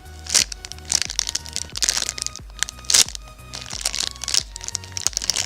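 Background music with a steady bass line and a regular percussive beat.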